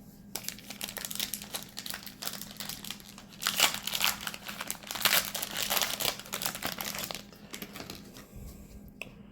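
Foil wrapper of a Magic: The Gathering collector booster pack crinkling and tearing as it is opened, loudest in the middle, giving way to a few light clicks of card handling near the end.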